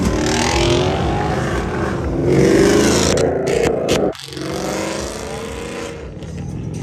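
Car engines revving and accelerating hard, pitch rising through the gears; about four seconds in the sound cuts off abruptly and another car's engine is heard pulling away.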